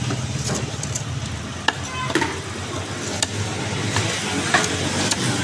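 A knife slicing katla fish on a wooden chopping block, with a few sharp, irregular knocks of the blade against the wood, over a steady hum of street traffic.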